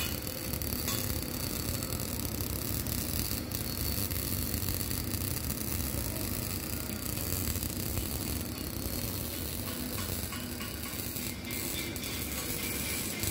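MAG (GMAW) welding arc crackling steadily as the wire burns into a steel pipe joint.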